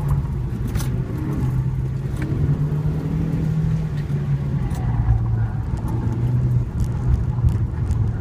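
2013 Ford Focus ST's turbocharged 2.0-litre four-cylinder, heard from inside the cabin, pulling hard in second gear at about 4,500–4,800 rpm. Its pitch drops about five seconds in as the revs fall to around 3,500 rpm while the car slows for a corner.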